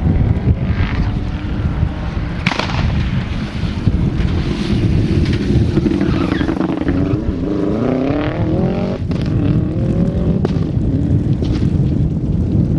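Subaru Impreza WRX STI rally car's turbocharged flat-four engine driving hard through a corner, its note climbing steeply as it accelerates about two-thirds of the way in. A few sharp cracks come through, the loudest early on.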